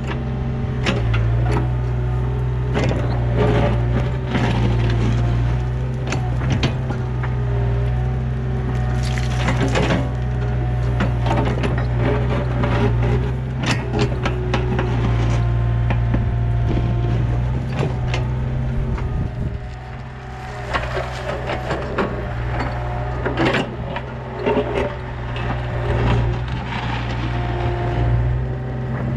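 Yanmar B37 mini excavator digging: its diesel engine runs steadily under hydraulic load, while the bucket scrapes and crunches through stony dirt in many sharp clicks and knocks. There is a brief easing of the load about twenty seconds in.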